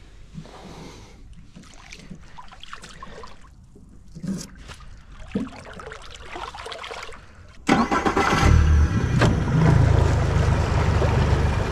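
A 40 hp tiller outboard motor starts about two-thirds of the way in and then runs steadily. Before it, a few light knocks.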